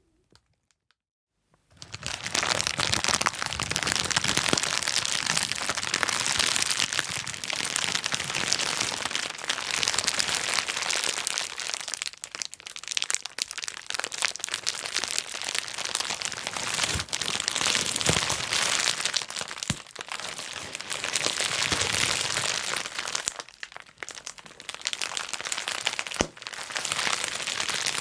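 Plastic bubble wrap being crumpled and popped: a dense run of crinkling with many sharp pops, starting about two seconds in after a moment of near silence, with a short lull near the end.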